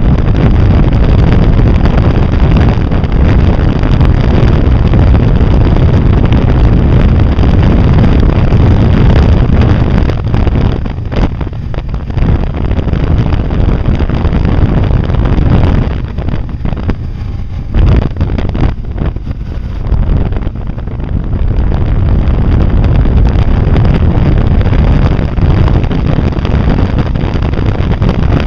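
Wind buffeting a vehicle-mounted action camera's microphone while riding a Can-Am on the road, with the vehicle's engine and road noise underneath. The rush eases twice for a few seconds past the middle.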